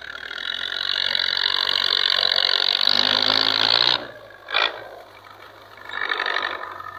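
Belarus 510 tractor's diesel engine labouring while hauling a heavily loaded sugarcane trolley, a loud rough noise that drops away suddenly about four seconds in. A short burst and then a second swell follow.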